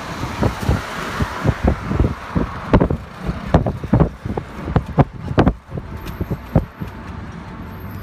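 Traffic and ride noise heard from inside a moving car, with frequent irregular low thumps on the microphone, densest a few seconds in.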